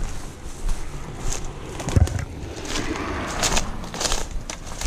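Footsteps pushing through dry grass and brush, with irregular rustling and crackling of dry stems and a heavier thud of a footfall about two seconds in.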